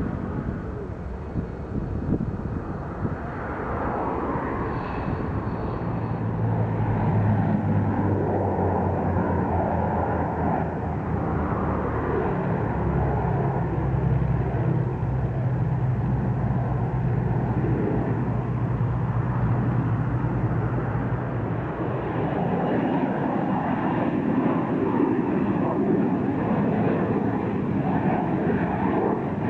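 Harrier jump jet's Rolls-Royce Pegasus engine running at high thrust as it lifts off and flies away: loud, steady jet noise, with a low drone held from about six seconds in to about twenty seconds.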